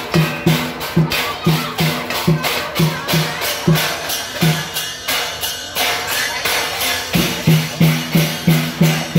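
Rhythmic percussion music: a pitched drum beating about twice a second under a steady shaking, clattering rattle. The drum drops back for a couple of seconds in the middle and returns strongly near the end.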